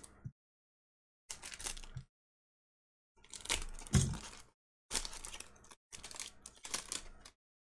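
Foil wrapper of a Topps Turkey Red trading-card pack crinkling and tearing as it is pulled open by hand, in about five short bursts with dead silence between them.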